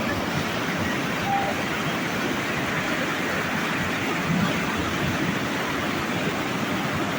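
Steady rush of floodwater from an overflowing river pouring past.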